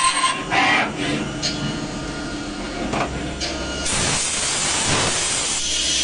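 CNC router cutting wood: a steady hissing machine noise that gets louder and brighter about four seconds in.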